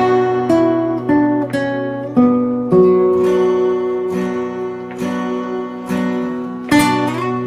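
Two acoustic guitars playing a slow instrumental introduction together: single picked notes ringing out over held chords, with a few firmer strummed chords, one of them near the end.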